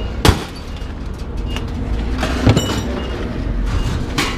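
Three sharp metal clanks while scrap metal is handled and broken apart, the middle one ringing briefly, over a steady low rumble.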